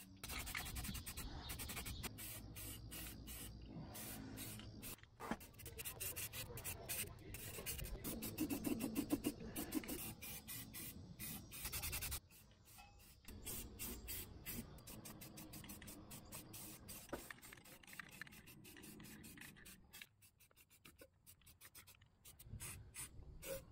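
Aerosol spray-paint can spraying in short, uneven bursts, faint.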